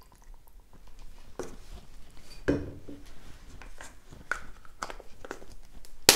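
A plastic So Slime cup, holding the wet slime powder, being handled in the hands: a series of light knocks and clicks, with a sharp click near the end.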